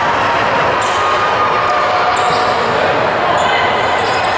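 Basketball game in a gym: the ball bouncing on the court in a few sharp knocks over a steady din of voices in the hall, with a few faint squeaks.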